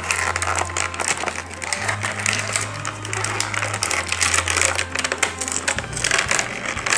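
Clear plastic packaging crinkling and crackling as it is pulled and torn open by hand, over background music with a bass line that changes note every two seconds or so.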